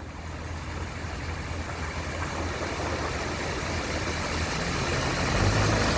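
Car driving slowly through deep floodwater towards the listener: a low engine hum under the rush of water pushed aside, getting steadily louder as it nears.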